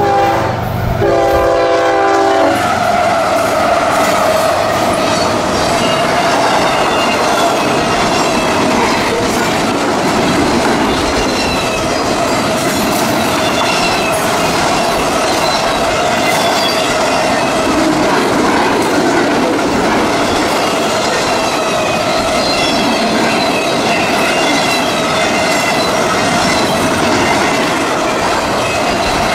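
Freight locomotive horn sounding in two blasts that end about two seconds in. Then a fast CSX double-stack intermodal train passes close by, its wheels running loud on the rails with a steady high ringing tone over the rail noise.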